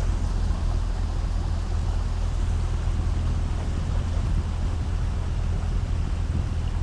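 A boat's motor running steadily, a constant low drone, with the rush of water and wind over it.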